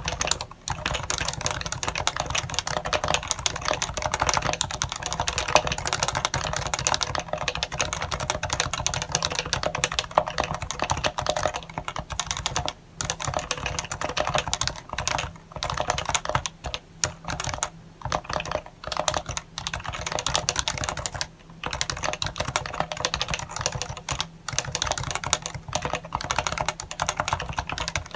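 Fast, continuous typing on a Happy Hacking Keyboard Professional 1 with Topre switches: a dense run of keystrokes, broken by a couple of brief pauses.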